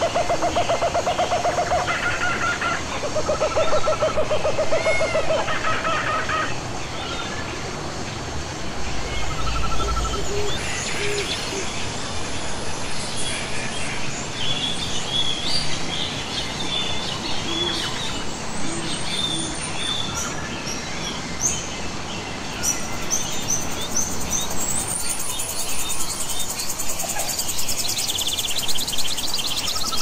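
Forest ambience: several birds calling over a steady hiss. Low pulsed notes come in the first few seconds, and high chirps and buzzy trills fill the second half.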